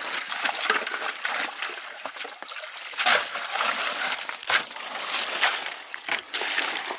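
Shallow pond water splashing and trickling as a hand net scoops through it and is lifted out to catch fish, with a few sharper splashes in the second half.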